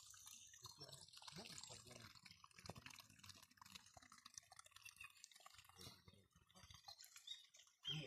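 Very faint trickle of a small muddy forest stream, barely above near silence.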